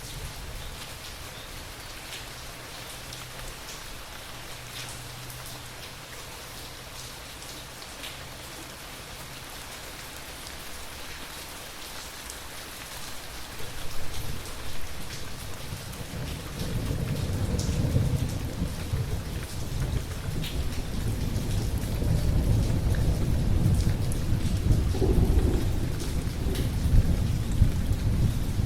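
Steady rain falling with scattered close drop ticks. About halfway through, a low rumble of thunder builds and stays loud, rolling on to the end.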